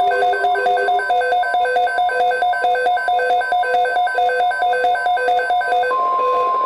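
Rapid electronic beeping, several pitches pulsing at about six beeps a second. About six seconds in, a steady single high tone starts: the 1050 Hz NOAA Weather Radio warning alarm tone that precedes an alert.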